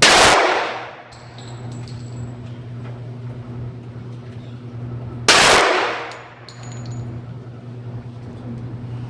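Two gunshots about five seconds apart, one right at the start and one near the middle, each loud and ringing out for about a second, over a steady low hum.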